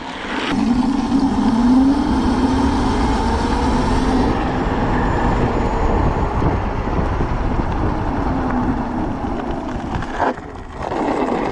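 Electric minibike's 72-volt QS90 motor whining under full throttle, its pitch rising steadily for the first few seconds of a hard 0-to-30 mph launch and then holding level, over a heavy rush of wind noise.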